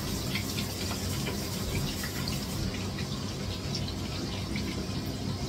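Kitchen sink tap running steadily while hands are washed under it, with small splashes.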